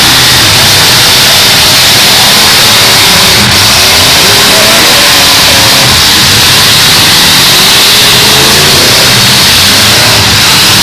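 Several full-size demolition derby cars' engines running and revving at once, their pitches rising and falling over each other, loud enough to overload the recording.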